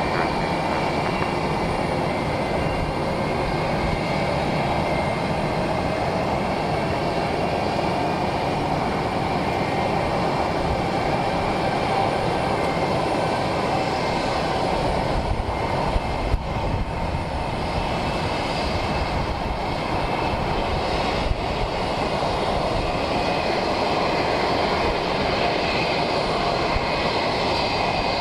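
Jet airliner engines running steadily: a broad rush with a faint whining tone that slowly drifts in pitch.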